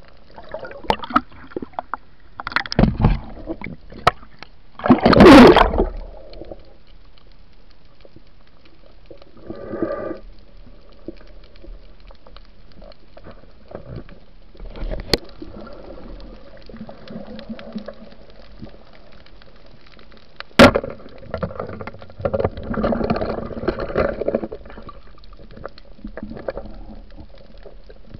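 Water gurgling and sloshing, heard through a camera held underwater. Irregular bursts come over a steady hiss, the loudest about five seconds in, with a sharp click about twenty seconds in.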